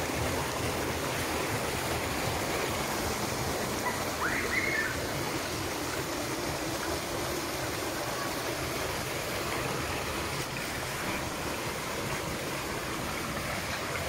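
Shallow stream running over rocks: a steady rush of flowing water.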